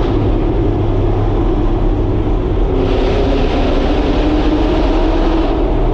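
Audi R8's V8 engine running steadily at speed, heard from inside the cabin as a constant drone. A higher hiss joins it from about halfway and drops away again shortly before the end.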